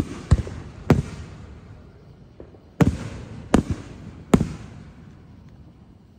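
Fireworks aerial shells bursting overhead: a series of sharp bangs, three within the first second and three more about three to four and a half seconds in, each followed by a rumbling echo.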